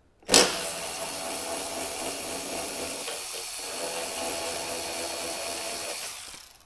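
Cordless electric ratchet running steadily as it backs out a panel bolt. It starts abruptly, dips briefly about halfway, and stops after about six seconds.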